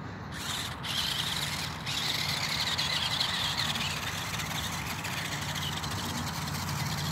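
Toy-grade RC buggy's small electric motor and gearbox whining high as it drives over loose dirt, starting up about half a second in.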